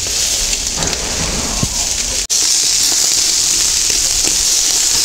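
Pork shashlik skewers sizzling over hot charcoal in a mangal, a steady hiss. It breaks off for an instant about two seconds in and comes back louder and closer.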